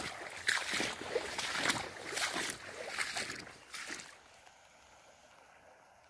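Irregular rustling and scuffing noise from a handheld phone being moved about in the rain for about four seconds. It stops suddenly, leaving only a faint steady hiss of rain falling on a stream.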